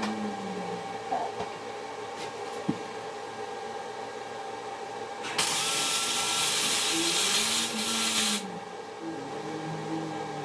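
A short welding run on a go-kart sprocket: a steady arc hiss that starts abruptly about five seconds in, lasts about three seconds and cuts off. It is kept brief so the heat does not burn up the wheel bearing.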